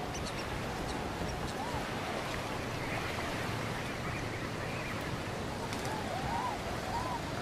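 A flock of American coots on open water calling, with short arched calls at irregular intervals over a steady rushing background.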